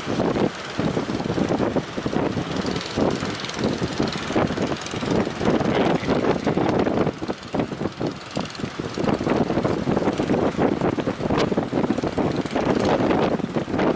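Strong gusty wind buffeting the microphone: a rushing noise that rises and falls unevenly.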